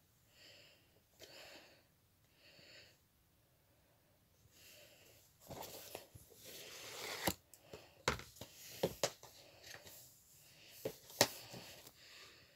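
Soft breathing close to the microphone at first, then plastic DVD cases being picked up and handled: rustling with several sharp clicks and knocks, the loudest near the end.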